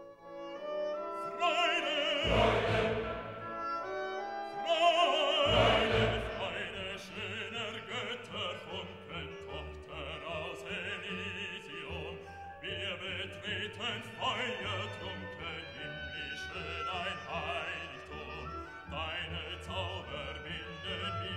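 Background music: operatic classical singing with a wide vibrato over an orchestra, swelling loudly twice in the first six seconds and then carrying on steadily.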